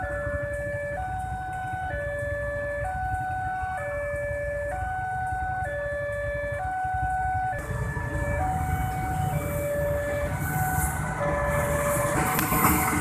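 Railway level-crossing alarm sounding its two-tone warning, alternating between a higher and a lower tone about once a second. From about eight seconds in, the rumble and rail noise of an approaching CC 206 diesel locomotive build up under it, and it grows loudest with rail clatter near the end as the locomotive reaches the crossing.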